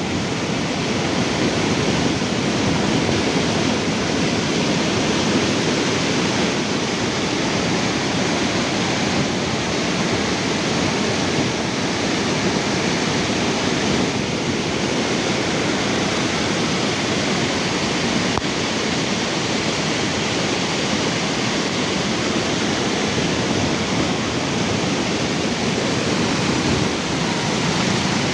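Palar river in flood, its floodwater rushing past in a steady, loud, unbroken rush.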